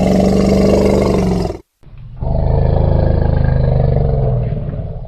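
Wild elephant giving two long, low roaring calls: the first ends about a second and a half in, and after a short pause a longer second call follows, fading away near the end.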